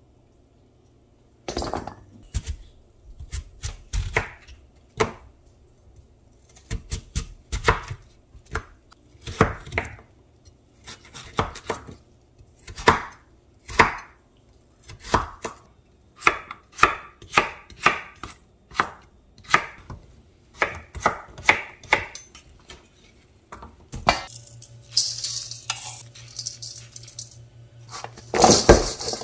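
Chef's knife cutting through a Korean radish onto a wooden cutting board, sharp uneven chops about one or two a second. In the last few seconds the chopping stops and the cut radish sticks rustle and knock as they are tossed in a stainless steel bowl.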